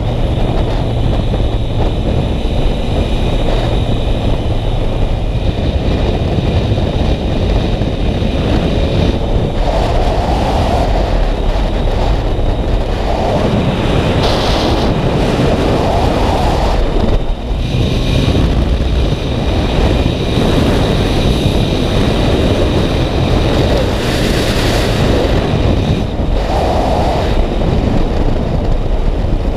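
Yamaha MT-09 three-cylinder motorcycle being ridden, its engine running under loud, steady wind noise buffeting the microphone.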